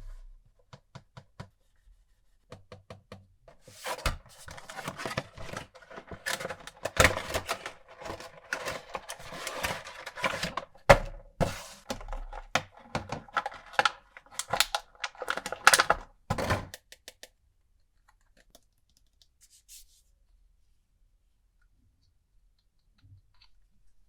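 A Funko Pop's cardboard box and plastic packaging being handled and opened: light taps at first, then about twelve seconds of knocks, scraping and crinkling with a few sharp louder clacks, stopping suddenly near the middle.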